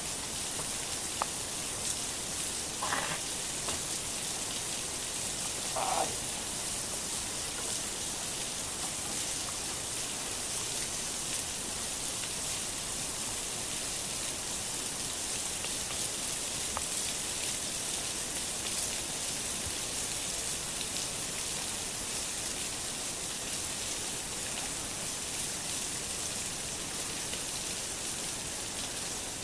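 A steady, even hiss of noise, strongest in the high range, with two brief faint sounds about three and six seconds in.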